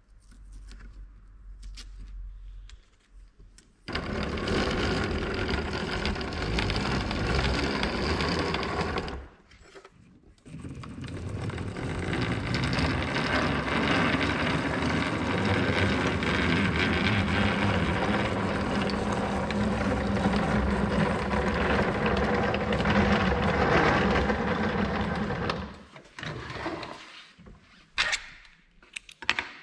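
Hand-cranked wooden rod binder being turned, winding thread tight around a freshly glued split-bamboo fly-rod blank: a steady mechanical whirr for about five seconds, a brief stop, then again for about fifteen seconds before it stops.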